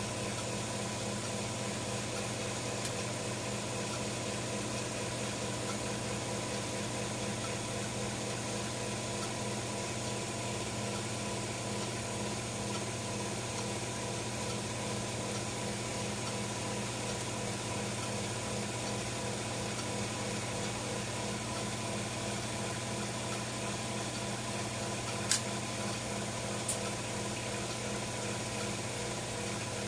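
A steady mechanical hum, unchanging in level, with two sharp clicks about a second and a half apart near the end.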